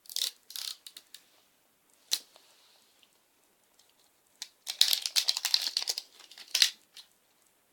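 Crinkling and tearing of a surprise egg's wrapper being peeled off by hand, in short rustles at first and then a longer run of crinkling about halfway through.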